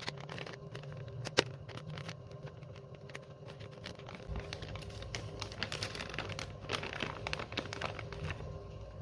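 Packaging being unwrapped and handled, crinkling and rustling with many small irregular crackles, and one sharp click about one and a half seconds in.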